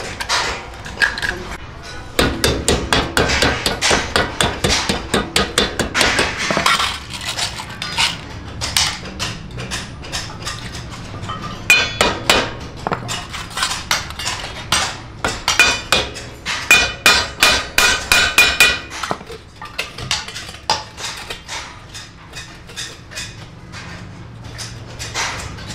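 Hammer striking stainless-steel sheet metal, fast runs of blows with a metallic ring and short pauses between, as a sheet-steel bracket is knocked into place on a tandoor drum.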